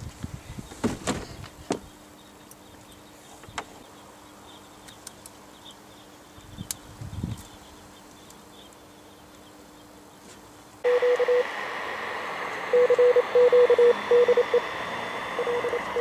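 Clicks and knocks of battery leads being fixed to a lead-acid battery's terminals. About eleven seconds in, the Torn.Fu.b1 radio cuts in suddenly with receiver hiss and a single Morse code tone keyed on and off.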